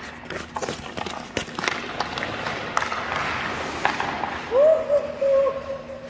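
Hockey skates striding and carving on ice with repeated clicks of a stick on the puck as a shooter drives in on the goalie. About four and a half seconds in comes a loud held tone lasting about a second.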